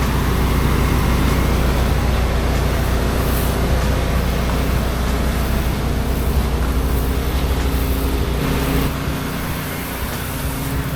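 An engine running steadily under the hiss of a 12-volt sprayer spraying post-treatment chlorine mix onto concrete; the engine note drops a little about nine seconds in.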